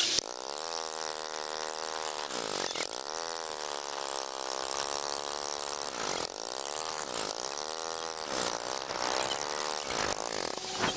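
Golf cart engine running as the cart drives along, its buzzing pitch rising and falling with speed and dropping sharply several times as it slows and picks up again.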